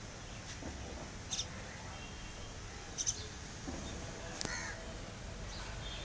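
Birds calling, with crow-like caws among them: three short, sharp calls about a second and a half apart over a faint steady background.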